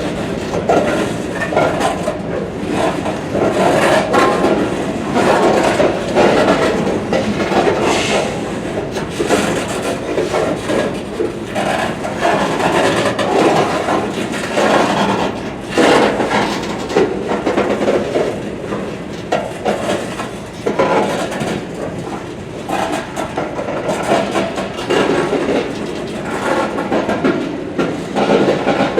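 Freight train cars rolling past, with a continuous rumble and rattle and irregular clicks and clanks from the wheels on the rails.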